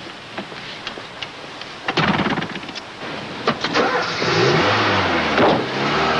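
A car engine starts about two seconds in, then revs up with rising pitch and settles into a steady run near the end. A few light clicks come before it.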